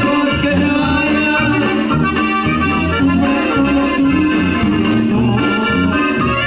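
Live regional Mexican band music: accordion to the fore over a steady, evenly paced sousaphone bass line, with guitar and brass.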